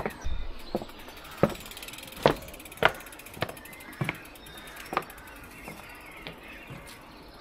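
Footsteps of cleated cycling shoes clicking on wet stone flags, a sharp click about every half second to second, thinning out after about five seconds.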